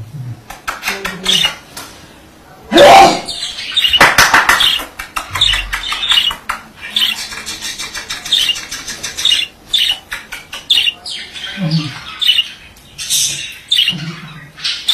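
Male budgerigar warbling and chattering: a fast, continuous run of high chirps, clicks and short squawky notes, with a loud harsh burst about three seconds in.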